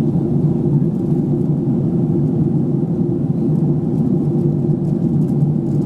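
Airliner cabin noise in cruise flight: a steady, dense low rumble of the jet engines and the air rushing past the fuselage.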